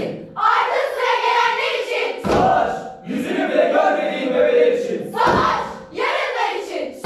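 A group of teenage voices singing in unison like a choir, in short phrases with brief breaks, and two low thuds about three seconds apart.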